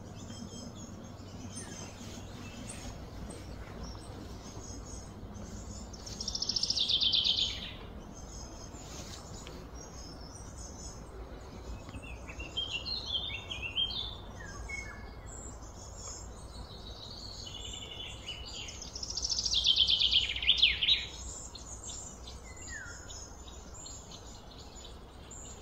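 Birds singing and calling, with two louder bursts of quick, rapidly repeated chirping notes about six and nineteen seconds in and scattered chirps between, over a steady low background rumble.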